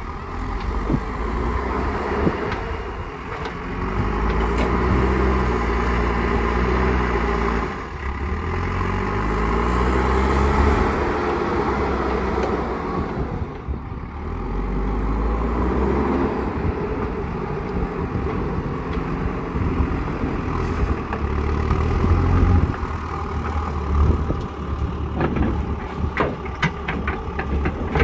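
JCB 3DX Super backhoe loader's four-cylinder diesel engine running under load, its pitch rising and falling repeatedly as the machine drives and lifts a full bucket of sand. A few sharp knocks come near the end as the raised bucket reaches the dump truck.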